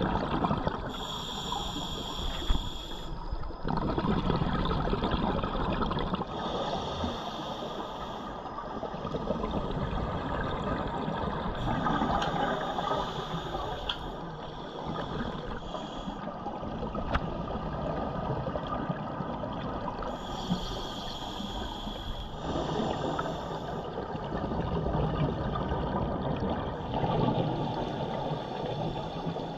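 Scuba breathing recorded underwater: a steady bubbling rush of exhaled air from the regulator, with a brighter hiss lasting a second or two returning every few seconds in time with the diver's breaths.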